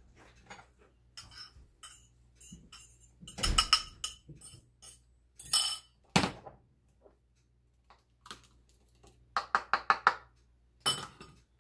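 A metal spoon clinking and scraping against a ceramic mixing bowl and a funnel set in a small glass jar, as a dry spice mix is poured and spooned into the jar. A quick run of taps comes near the end.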